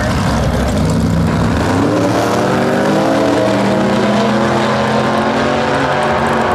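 Two V8 drag-racing gassers, a Willys coupe and a supercharged roadster, launching side by side off the line and accelerating hard down the strip, engine pitch rising as they pull away.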